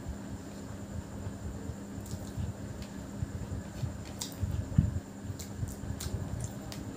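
Fingers squeezing and mixing biryani rice on a plate: soft, irregular squishes and small clicks, with one louder soft knock a little before five seconds in, over a steady low hum.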